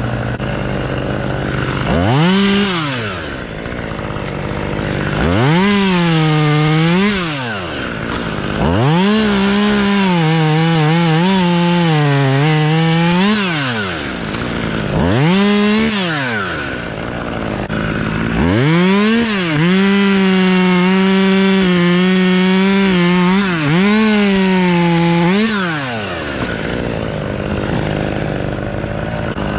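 Gas chainsaw revved up to full throttle and held through cuts, then dropping back toward idle between them, about five times. The longest run is in the second half, with the engine pitch wavering under load.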